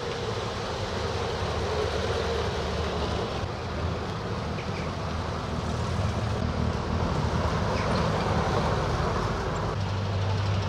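Car engines running as vehicles drive slowly past, a steady engine hum that grows louder after the middle, with a strong low engine note coming in near the end.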